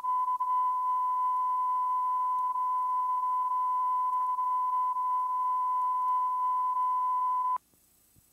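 A steady, unwavering beep-like test tone from the VHS tape's audio track that cuts off abruptly about seven and a half seconds in, leaving near silence.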